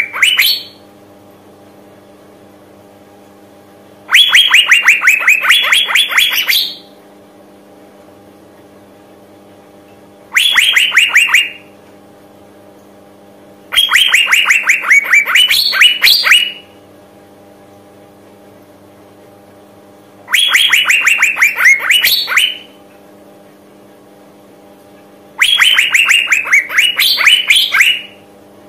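Female Asian fairy-bluebird calling to attract males: five fast trilled phrases a few seconds apart, each a quick run of sharp notes that dips slightly in pitch and then rises at the end.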